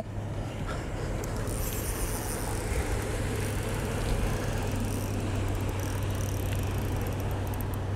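Outdoor background noise: a steady low hum under an even rushing hiss, with a faint high whine for a couple of seconds.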